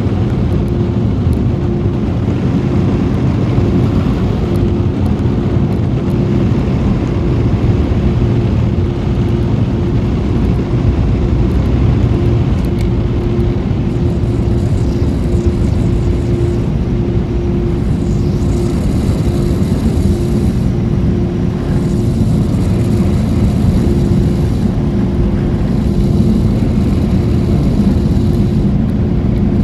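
Steady low rumble of a car idling, heard from inside the cabin, with a faint steady hum that keeps cutting in and out.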